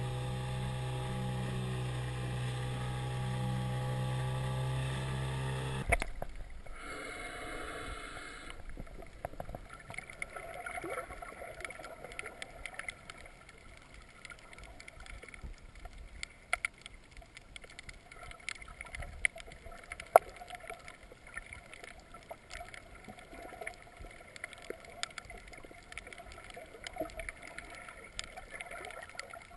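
Small outboard motor on an inflatable dinghy running at a steady speed; the drone cuts off abruptly about six seconds in. Then underwater ambience follows: a faint hiss with scattered crackling clicks, one sharper click about two thirds of the way through.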